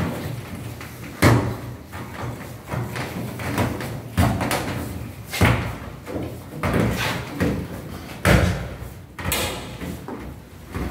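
Irregular knocks and thumps, about one every second or two, as an LED strip is pressed by hand into an aluminium ceiling profile, with some short rasping noises between them.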